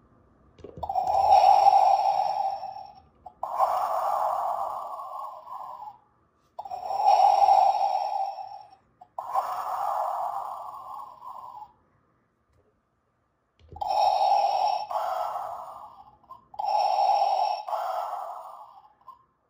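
Funko Pop Darth Vader electronic figure playing Vader's respirator breathing effect through its built-in speaker: three slow breaths, each an inhale followed by an exhale, with short pauses between them.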